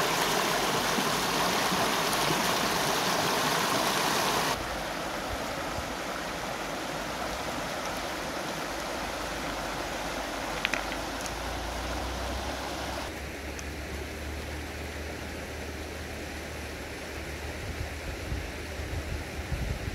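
Rushing water of a shallow, rocky river tumbling over a low line of stones. It is loud and close at first and quieter after about four and a half seconds. A low rumble joins it about twelve seconds in.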